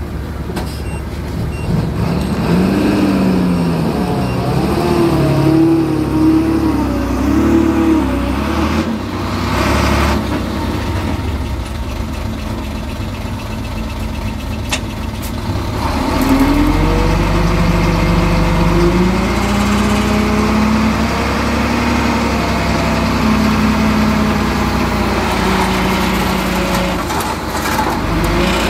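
Heavy earthmoving machine's diesel engine working, its pitch rising and falling with the load. It is loudest for several seconds near the start and again from about halfway, easing off in between.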